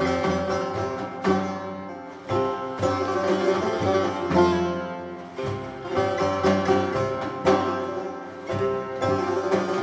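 Persian classical ensemble music: plucked long-necked lutes (tar and setar) playing phrases of sharply struck, decaying notes over bowed strings with a sustained low line.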